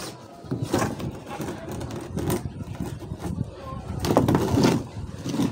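Red flexible PVC electrical conduit being pulled and pushed under steel rebar on plywood formwork: irregular scraping, rubbing and light knocks, busiest about four seconds in.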